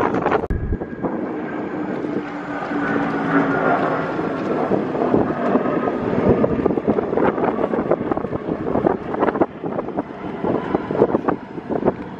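Motorboat engine running steadily as the boat cruises along, with wind buffeting the microphone.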